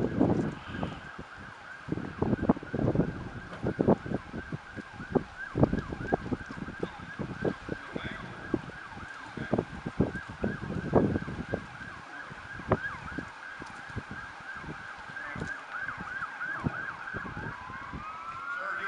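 Emergency vehicle siren sounding as a steady high tone, with a rising-and-falling siren wail joining near the end. Irregular low thumps break in throughout.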